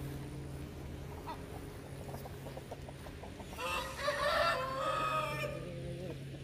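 A rooster crows once, one long call of about two and a half seconds starting a little past halfway, dropping in pitch at the end. Soft scattered clucks and a steady low hum sit underneath.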